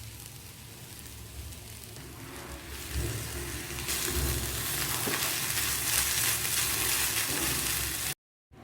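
Food sizzling in hot oil in a pan, the sizzle growing louder about three seconds in and staying strong before cutting off suddenly near the end.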